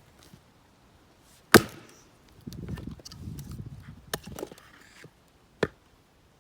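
Helko axe splitting a round of zelkova (keyaki) firewood: two sharp, hard hits about four seconds apart, the first the loudest. Between them come a rough low clatter and a few lighter knocks.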